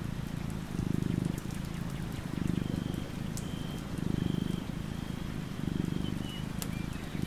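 Sleeping tabby cat purring: a low rumble that swells with each breath, about every second and a half.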